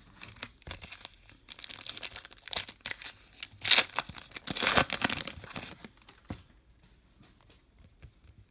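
Trading card pack wrapper being torn open and crinkled, a run of crackling rips loudest around the middle, then dying away near the end.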